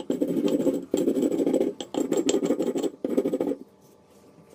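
Cylindrical stone roller of a small ammi (Indian grinding stone) rolled back and forth over roasted gram on the stone slab, a gritty rolling grind in four strokes of about a second each. It stops about three and a half seconds in.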